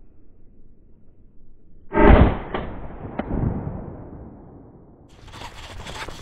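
A single shotgun shot from a Beretta Bellmonte fired at a wood pigeon, about two seconds in, its echo dying away over the next few seconds with a couple of small sharp clicks in it. A rustling hiss starts near the end.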